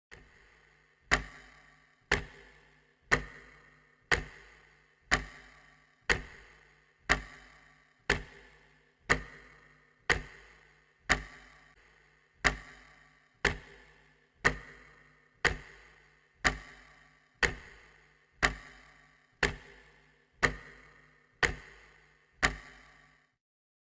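Clock ticking steadily, one sharp tick a second, each with a short ring after it; the ticks stop near the end.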